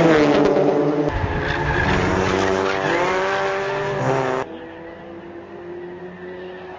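Scion tC race cars' four-cylinder engines running hard. One car passes close with a falling pitch, then the engines rev up and climb in pitch through the gears. About halfway through, the sound drops to fainter, more distant engine noise.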